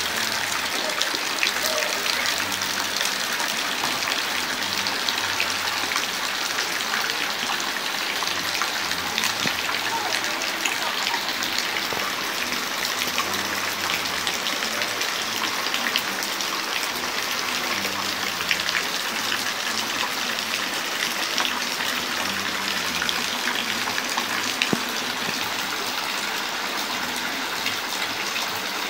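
Steady rain falling, with many separate drop hits heard through the constant rush.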